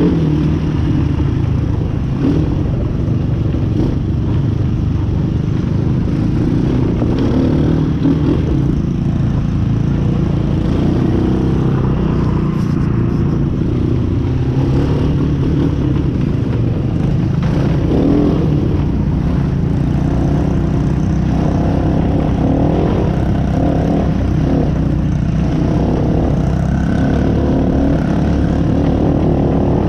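Off-road vehicle engine running loudly and continuously on a trail ride, its pitch shifting a little with the throttle.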